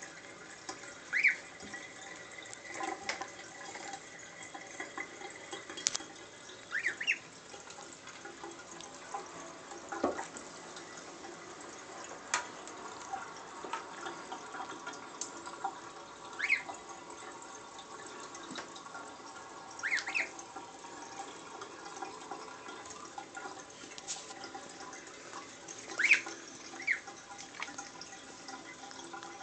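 Gosling peeping now and then: short rising peeps, some in pairs, over the sound of water in a bathtub with small splashes and drips.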